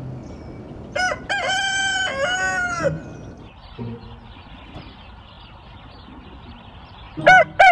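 A rooster crowing: one full crow about a second in, lasting about two seconds, and a second crow starting near the end.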